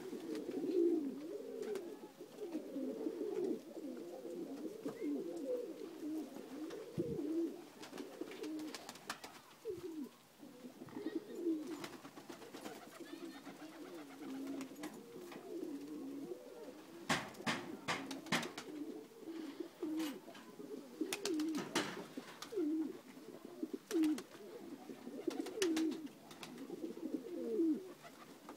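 A flock of domestic pigeons, Macedonian Dunek, cooing continuously in overlapping low, wavering calls. Short clusters of sharp clicks come through in the second half.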